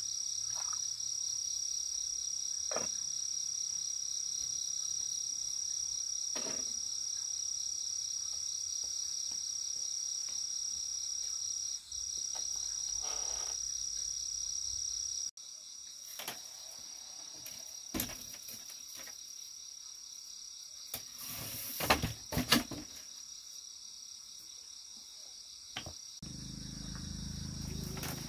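Steady high-pitched insect trilling, typical of crickets, running on throughout. About halfway through the sound changes abruptly, and a few scattered knocks and clicks follow, the loudest a cluster of two or three about three-quarters of the way in.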